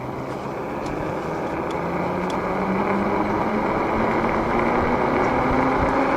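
Roll Road Leon e-bike under way: a motor whine rising slowly in pitch as it picks up speed, over a rushing tyre-and-wind noise that grows louder throughout.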